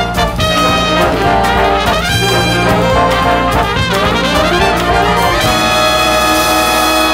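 Full jazz big band playing loud: trumpets and trombones lead an ensemble passage over saxophones, bass and drums. Over the last second and a half the band holds one long chord, which is cut off sharply at the end.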